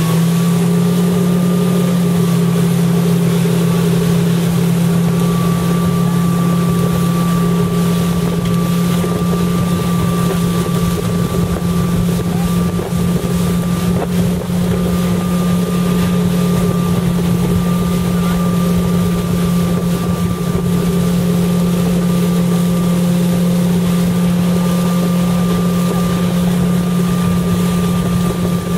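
Motorboat engine running steadily at towing speed, a constant even hum, over the rush of the wake and wind buffeting the microphone.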